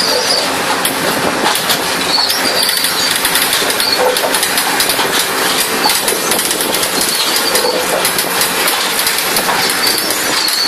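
Zhuzhou Innotran track-laying machine working over new track: a dense, steady mechanical clatter of metal clicks, with short high squeals every second or two.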